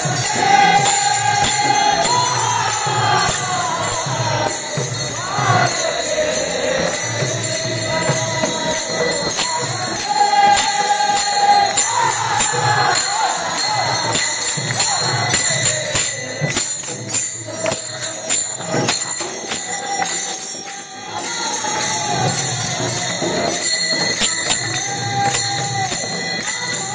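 A group of men singing a Ganesh bhajan together in unison, with many small hand cymbals clashing in a steady rhythm and a barrel drum keeping the beat. The level dips briefly about three-quarters of the way through.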